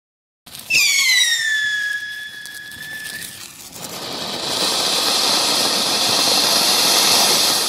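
A high, piercing whistle that falls in pitch and then holds steady for about two seconds. About four seconds in it gives way to the loud, steady hiss of a ground fountain firework spraying sparks, which begins to fade near the end.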